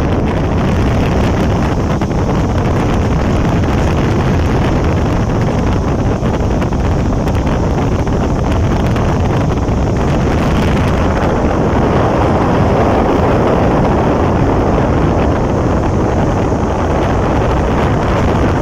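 Air handling unit's blower running, a loud steady rush of air through the yellow pocket filters, buffeting the microphone as it does.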